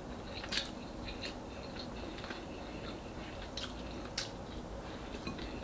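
Mouth sounds of someone chewing fried fish and rice: quiet wet chewing with short smacking clicks, the sharpest about half a second in and again a little after four seconds.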